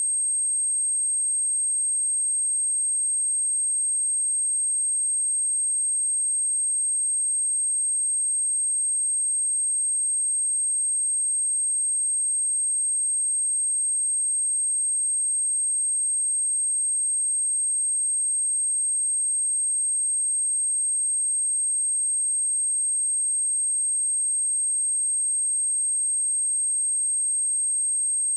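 A steady, unbroken 8424 Hz sine-wave test tone, a single high-pitched whistle held at one pitch and level, of the kind used to test a speaker or shake dust and water out of it.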